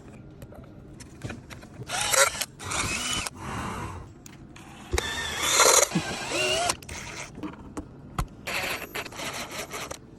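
Cordless drill-driver running in short bursts, about three times, its motor pitch wavering up and down as it drives.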